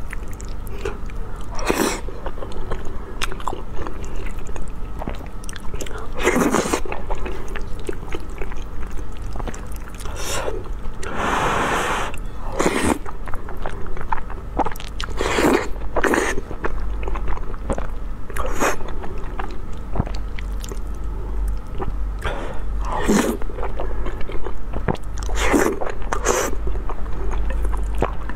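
Close-miked eating sounds: food being chewed and bitten, with irregular louder sounds every second or two and one longer, drawn-out one about halfway through.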